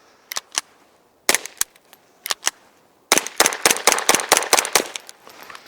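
Suppressed .22 LR shots from a GSG 1911 pistol with a Banish 22 suppressor, each a short, quiet crack rather than a loud pop. A few spaced shots come first, then a rapid string of about a dozen starting a little after three seconds in. The hits of the rounds on the target can be heard.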